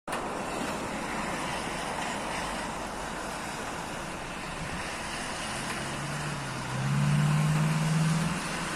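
Steady hiss of rain, with a low motor-vehicle engine hum coming in about five and a half seconds in. The hum grows louder for a second and a half, then drops away near the end.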